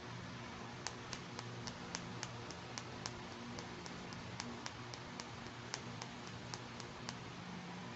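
Fingernails tapping on a tiny pink plastic toy hand mirror: a run of light, sharp clicks, about four a second, starting about a second in and stopping shortly before the end.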